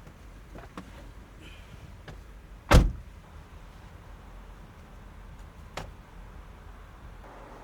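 A single heavy thump a little under three seconds in and a lighter knock about three seconds later, over a low steady rumble.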